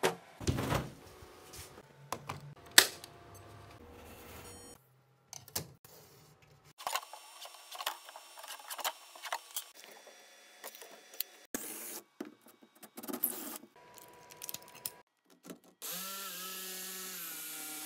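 Scattered short knocks, taps and handling clicks, the loudest about three seconds in, then about two seconds before the end a power saw starts and runs steadily, cutting into drywall.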